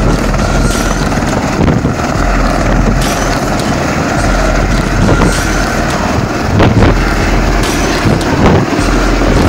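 Helicopter lifting off close by: the engine and rotor run loud and steady as it rises off the road.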